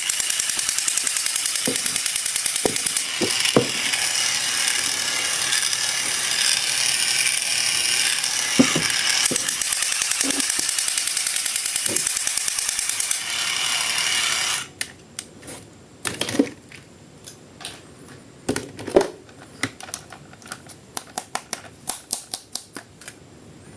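A fast, steady mechanical ratcheting clatter with a few louder knocks, which stops suddenly about fifteen seconds in. After it come scattered light clicks and taps.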